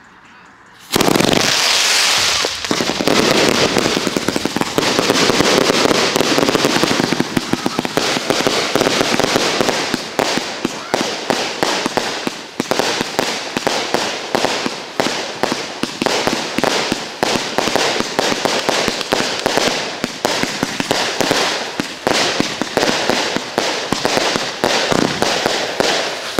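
A 288-shot consumer firework cake (a "show in a box") going off. It erupts suddenly about a second in, then keeps up a rapid, unbroken barrage of launches, bangs and crackling.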